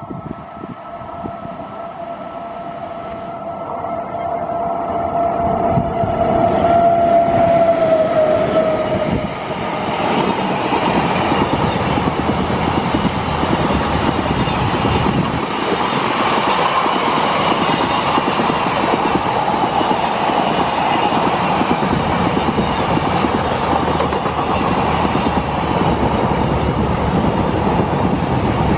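A WAG-9 electric locomotive sounds one long horn blast as it approaches. The horn grows louder, then drops slightly in pitch as the locomotive passes, about nine seconds in. The double-stack container wagons then run past close by with a steady rumble and clatter of wheels on rail.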